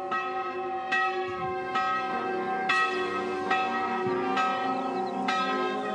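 Church bells ringing, several bells struck in turn with a new stroke about every second, each one ringing on under the next.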